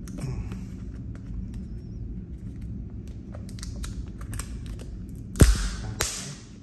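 A shrink-wrapped cardboard headphone box being handled, with light taps and crackles of the plastic film. About five seconds in comes a loud thump against the box, followed by a short rush of crinkling plastic.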